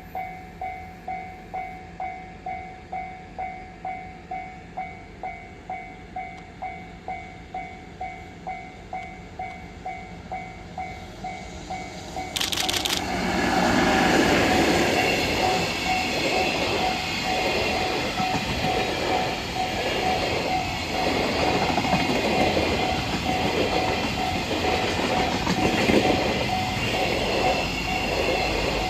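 Japanese level-crossing bell ringing at about two strokes a second. About twelve seconds in, a JR Freight EF66 electric locomotive and its freight train arrive suddenly and run over the crossing, the wagons' wheels clacking over rail joints in a steady rhythm while the crossing bell keeps ringing.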